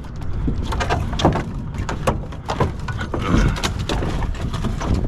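Wooden boards and construction debris being handled and tossed: a run of irregular knocks and clatters, with a heavier thud about three and a half seconds in.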